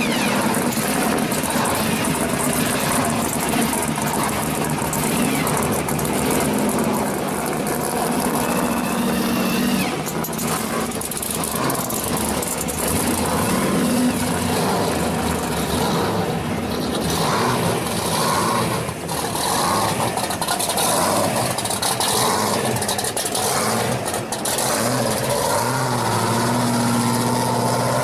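Exhausts of modified muscle cars, a Chevy Nova and early second-generation Camaros, idling and pulling away one after another.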